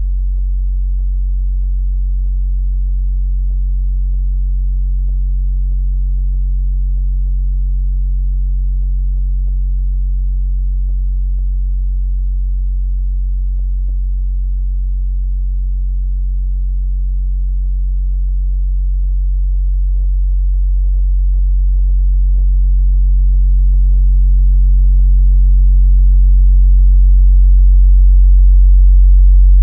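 A steady low electronic drone of a few held low tones, with faint scattered clicks over it; it swells louder over the last ten seconds or so.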